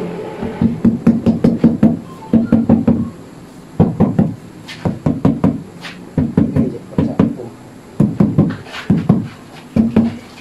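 A rubber mallet taps the rim of a stainless steel kitchen sink, seating it down into its countertop cut-out. The knocks come in quick runs of several strikes, with short pauses between the runs.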